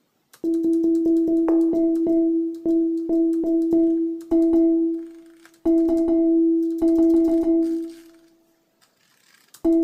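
Teenage Engineering OP-1 playing a sampled sound: one pitch retriggered over and over from a single key, with short breaks between the notes, while its sample settings are adjusted to make it sound less natural. The notes start about half a second in, die away a little after eight seconds, and pick up again just before the end.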